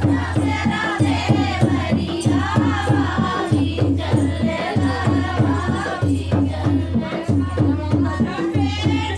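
Dehati folk song: women's singing over a steady drum beat.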